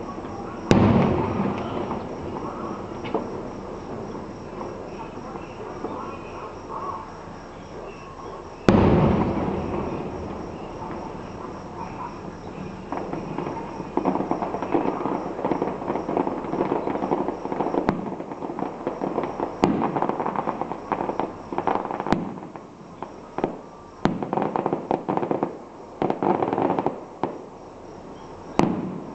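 Fireworks going off. There are two big bangs, about a second in and about nine seconds in, each followed by a long fading tail. From about fourteen seconds on comes a fast, irregular run of crackling bursts with a few sharper cracks.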